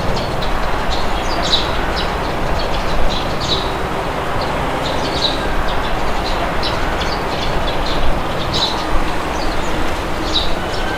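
Steady wind rushing, with birds giving many short, high chirps at irregular intervals over it.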